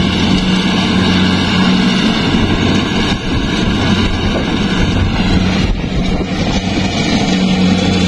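Rice combine harvester's diesel engine running steadily at constant speed: an even, low hum with mechanical noise over it.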